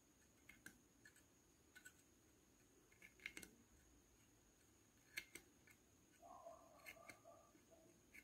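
Near silence with a few faint, sharp clicks: a metal knitting hook tapping the nails of a wooden nail-frame loom as wool loops are lifted over them. A faint sound held at two pitches comes in about six seconds in.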